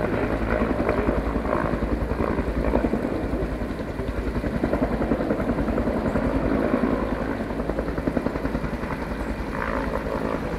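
Bell 205 helicopter drawing nearer, its two-bladed main rotor beating in a fast, steady, even thump.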